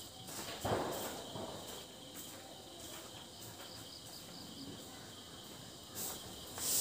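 Crickets chirping steadily in the night background while a newspaper-wrapped homemade firecracker burns, with a short soft knock about a second in. Near the end a loud hissing starts as the firecracker's powder catches and begins to fizz.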